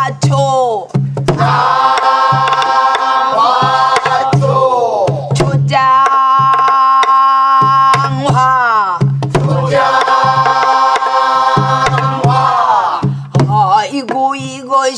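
Pansori singing: a woman's voice holding two long notes that waver and fall away at their ends, over regular strokes of a buk barrel drum.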